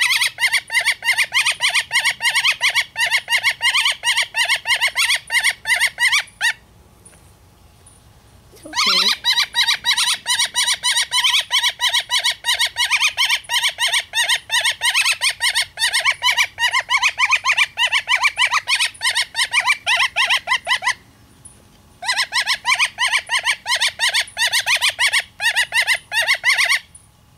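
Young red-shafted northern flicker calling in a fast, unbroken series of evenly repeated notes. The series stops twice, for about two seconds a quarter of the way in and for about a second near the end, then starts again.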